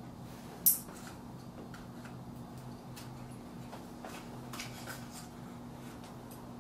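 Toenail clippers snipping: one sharp clip about a second in, then a few fainter clicks, over a steady low electrical hum.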